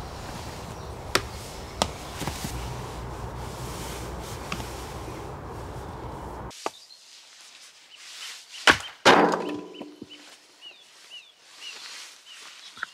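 Two loud wooden knocks about half a second apart, the second ringing briefly, like wood being chopped or struck. Before them a steady rushing noise with a few sharp cracks cuts off suddenly, and birds chirp near the end.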